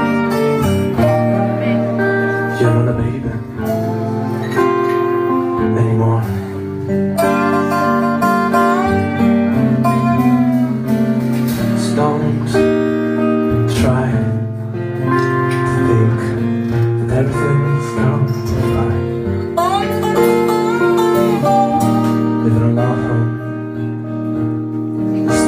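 Live band music: a resonator guitar played over acoustic guitar, with sustained notes and sliding pitches.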